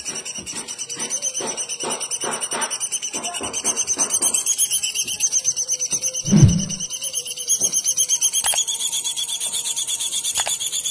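A bird calling in a fast, pulsing, high-pitched trill of several notes a second that runs on steadily. One brief, loud low thud comes about six seconds in.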